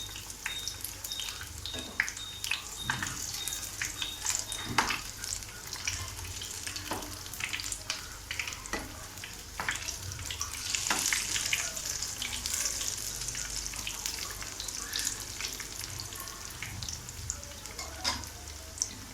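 Batter-coated paneer pakodas deep-frying in hot oil on a low flame: a steady sizzle full of small pops and crackles, with scattered clicks of stirring in the pan.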